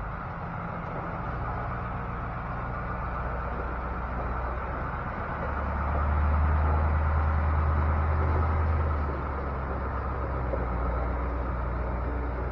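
Ford L8000 dump truck's engine running as the truck is driven in the yard. The note gets louder and lower-pitched from about six to nine seconds in, then eases back.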